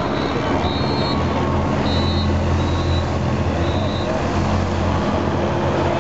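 Engines of race-convoy motorcycles and a car passing close by, a steady hum that swells in the middle, over spectator noise. About five short high-pitched whistle-like blasts come in the first four seconds.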